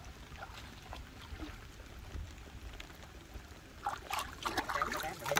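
Water trickling and splashing, faint at first with a few small drips, then a louder run of splashes and slaps near the end.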